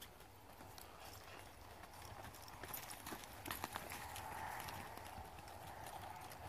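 Horse's hoofbeats on soft arena dirt while it is ridden at speed around barrels, coming as irregular dull knocks that are thickest in the middle.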